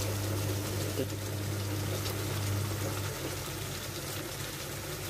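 Chicken wings simmering in sauce in a frying pan on a gas stove, bubbling and sizzling lightly over a steady low hum, with a light clink about a second in.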